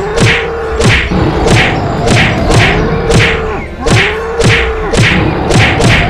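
Cartoon fight sound effects: sharp hits repeating about twice a second, with long animal cries that rise, hold and fall in pitch, three times.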